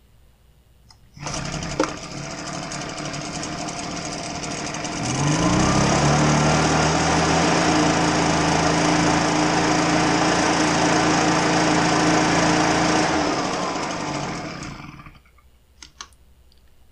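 Husqvarna 130BT backpack blower's two-stroke engine starts about a second in and idles. About five seconds in it revs up to full throttle and holds steady, then drops back and shuts off near the end. At full throttle it reaches only about 4,900 RPM, short of its proper top speed: the engine is low on power because something is restricting it.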